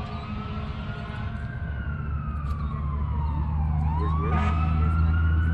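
Emergency vehicle siren on a slow wail, its pitch rising, falling and rising again. A low steady drone comes in about two seconds in, and the whole grows louder toward the end.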